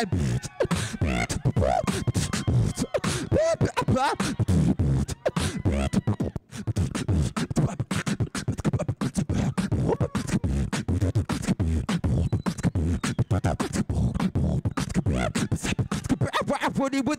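Beatboxing into a microphone through a sound system: rapid mouth clicks, kick-like thuds and snare-like pops in a fast rhythm, mixed with short hummed vocal sounds, without any backing track.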